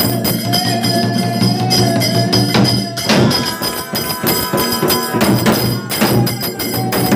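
Live devotional folk music: a sung line held and gently bending in pitch over jingling hand percussion and repeated strikes.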